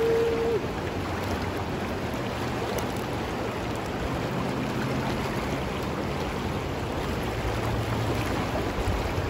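Shallow river water rushing steadily over a rocky riffle.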